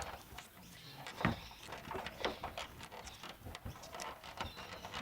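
A run of irregular small clicks, taps and knocks of hands handling parts on the car, with one louder knock about a second in.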